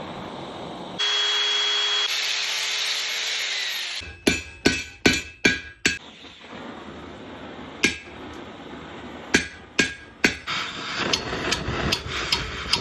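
A hammer striking steel, the blows ringing: a quick run of about six strikes, then spaced single blows, then a flurry of lighter taps near the end. Before the hammering, a loud steady rushing noise with a faint whine lasts about three seconds and fades out.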